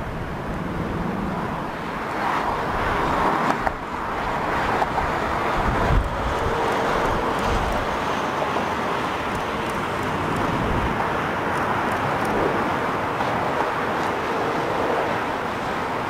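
Turbofan engines of an Embraer E170 regional jet on the landing rollout: a steady jet rush with a faint held tone. Gusts of wind buffet the microphone in low thumps.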